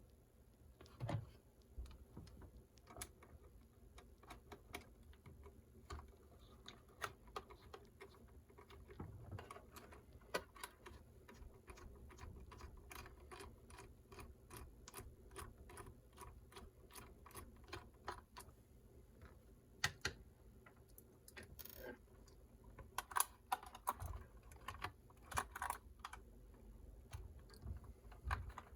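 Faint, irregular small clicks and taps of plastic parts being handled as the body is worked off an Axial SCX24 mini RC crawler, with a busier run of ticks late on.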